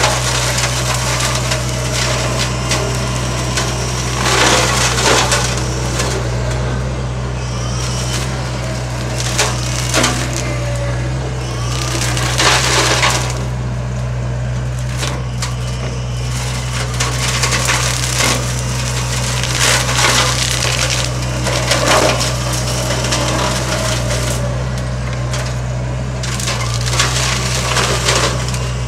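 Hedge cutter head on a 6-ton digger chewing into hedge branches: bursts of crackling, splintering wood every few seconds over the steady hum of the digger's diesel engine.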